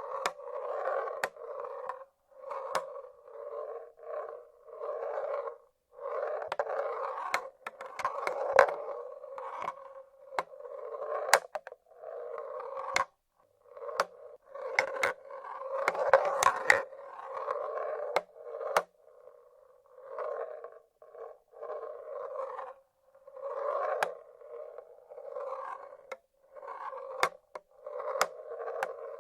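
Marbles rolling along the tracks of a wooden marble-run machine: a string of short rolling rumbles, each lasting about a second, broken by sharp clicks as the marbles knock and drop.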